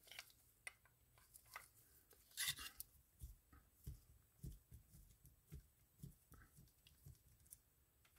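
Near silence with faint metal clicks and soft knocks of a wrench working the rotor nut off a Penn Spinfisher 850SS spinning reel, and a brief rustle about two and a half seconds in.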